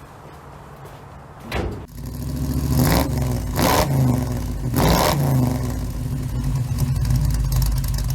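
A car engine cranks briefly, catches and runs, then is revved three times in quick blips before settling back to a loud, steady run.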